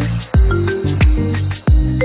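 Background music with a steady beat: a deep kick drum about every two-thirds of a second over held bass notes.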